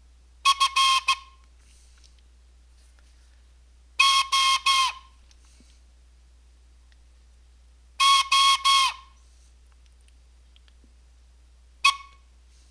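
Morse code sent on a whistle: three groups of short and long steady-pitched blasts about four seconds apart, then a single short blast near the end.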